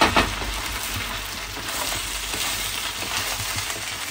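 Fried rice sizzling in a hot wok while a spatula stirs and tosses it, scraping the pan now and then, with one sharper scrape just after the start.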